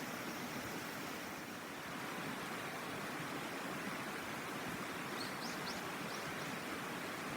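A shallow river murmuring steadily over stones. About five seconds in, a few short high chirps sound briefly above it.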